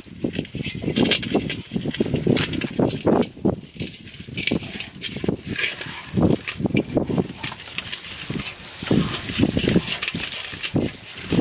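Hands rubbing wet spice paste into the skin of a whole raw pangasius fish, making irregular wet squishing and slapping sounds with small clicks.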